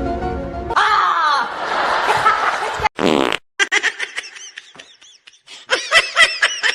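Intro music cuts off. A voice-like sound with wavering pitch follows, then a short low buzzy fart-like noise about three seconds in, and then a run of short high chirping laughs.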